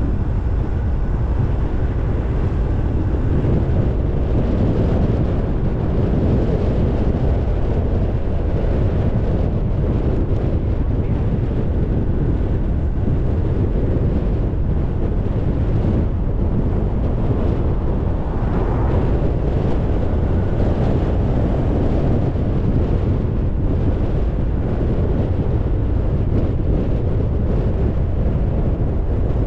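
A car driving: a steady, low rumble of road and engine noise, with wind on the microphone.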